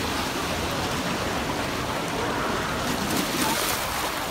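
Lazy-river water churning and splashing around the tubes, a steady wash with a brighter spell of splashing about three seconds in.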